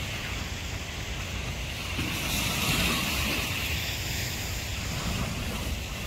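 Wind rumbling on the microphone over a steady hiss of surf breaking on a rocky shore.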